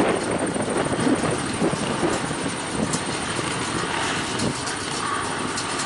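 A pack of flat-track motorcycle engines running together on the start line, a steady mixed drone with small uneven swells in level.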